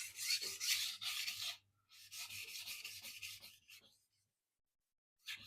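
Steel knife blade being stroked quickly back and forth across a sharpening stone, a scratchy rasping in two runs of strokes, then a short pause before the strokes start again near the end.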